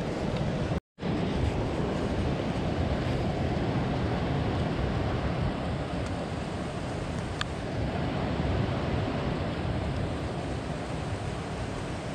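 Steady rushing of river water mixed with wind buffeting the microphone. The sound drops out completely for a moment about a second in.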